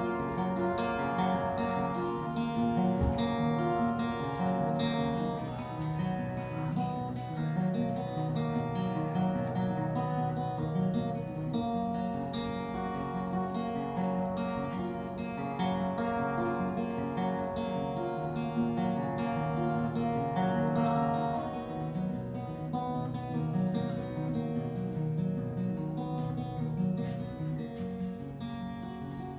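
Acoustic guitar played solo: an instrumental passage of quick picked notes and strums, growing a little quieter near the end.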